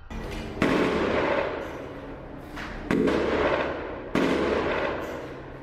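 Three loud blasts, the first about half a second in and the others about two and a quarter and one and a quarter seconds apart. Each one starts sharply and fades out over a second or more.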